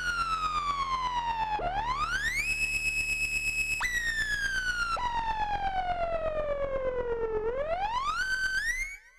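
Elektron analog synthesizer preset playing a single siren-like tone that glides slowly down, leaps and sweeps back up, holds, then falls and rises again. Under it sit a steady low drone and a fast, even pulsing. It fades out about nine seconds in.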